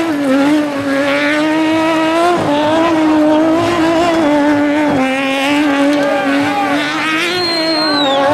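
Car engine held at high revs while spinning doughnuts in an off-road drifting show, the pitch wavering with small dips as the throttle is worked. A thin high-pitched whine comes in about seven seconds in and falls away near the end.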